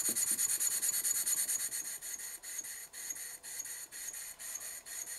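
Stuart 10V single-cylinder model steam engine running on compressed air: a quick, even beat of exhaust puffs that slows and gets quieter about two seconds in. The engine is running well, with its valve timing still slightly retarded (air admitted just after top dead centre).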